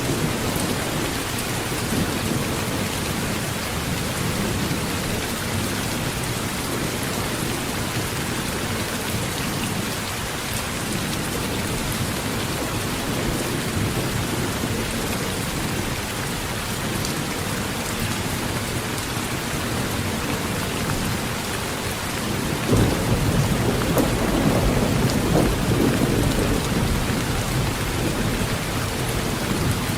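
Heavy rain drumming on a tin roof, a steady hiss, with a roll of thunder rumbling in about three-quarters of the way through and lasting several seconds.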